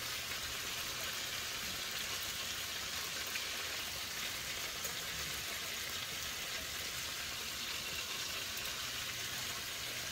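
Fish fillets in cornmeal breading frying in a pot of hot oil at about 360–375 °F, a steady sizzle with fine crackles.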